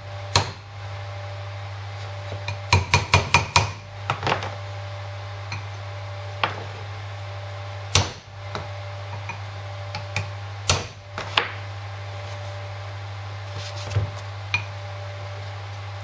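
Hammer striking a steel drift to tap universal joint bearing caps into the yoke of a Land Rover Series front half shaft. A quick run of about six light taps comes about three seconds in, then single blows every second or two.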